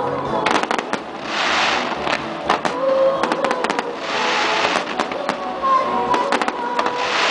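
Aerial fireworks bursting in quick succession: many sharp bangs, with two longer crackling spells about a second in and about four seconds in.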